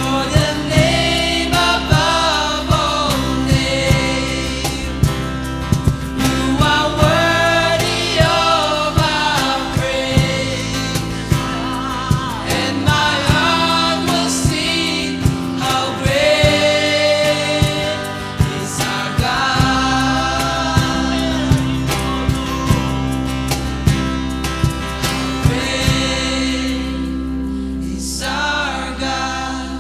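Gospel song: several voices singing together over a band, with a steady bass and a regular drum beat.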